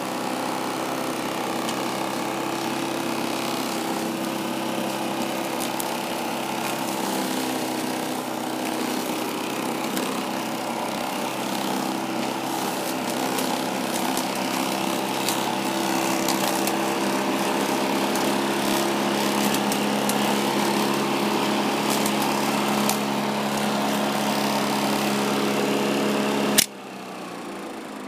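Earthwise 24-volt electric lawnmower's motor and blade running steadily with a humming whine while cutting grass, powered from an 18-volt mains transformer instead of its battery, with scattered sharp ticks in the second half. Near the end the motor cuts off suddenly with a sharp click.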